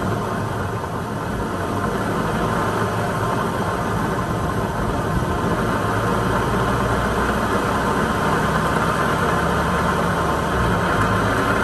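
Rear differential area of a 2014 Cadillac ATS 3.6 with the drivetrain running: a steady low hum under a grinding growl that grows louder over the first few seconds and then holds. This is the rear-end growl or grinding noise the owner is chasing, which he finds loudest off the gas at around 1200–1700 rpm.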